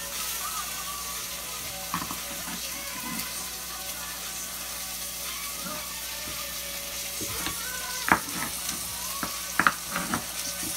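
Red onions frying in a skillet, a steady sizzling hiss. Near the end a knife strikes a cutting board several times in sharp clicks while onion is chopped.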